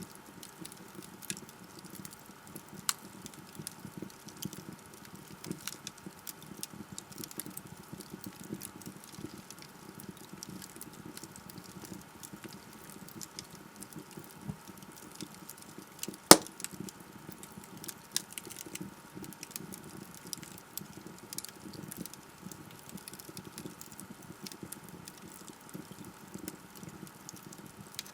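Wood fire burning in a fireplace, crackling steadily with many small scattered pops over a soft hiss, and one loud sharp pop about sixteen seconds in.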